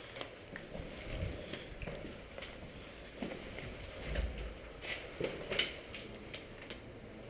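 Footsteps on a concrete stairwell and the rustle of clothing and gear, with scattered clicks and knocks from handled equipment; low thumps about a second in and again about four seconds in, and a few sharper clicks near five to six seconds in.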